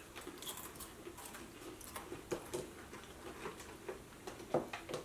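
Faint, scattered clicks and taps of small plastic tasting cups and plastic water bottles being handled on a table, the two loudest about two and a half and four and a half seconds in.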